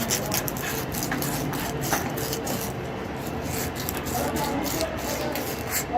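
Irregular scraping and rubbing strokes, many short scrapes a second, with faint voices in the background.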